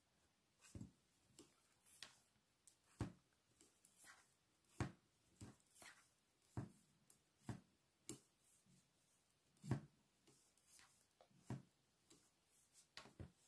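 Knitting needles clicking softly and unevenly, one or two taps a second, as stitches are knitted along a row.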